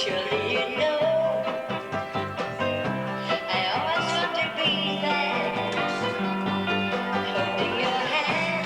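A song with a singing voice over instruments, including plucked strings and steady bass notes.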